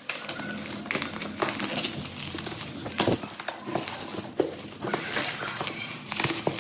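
Packaging being handled: irregular clicks, taps and rustling of cardboard and plastic.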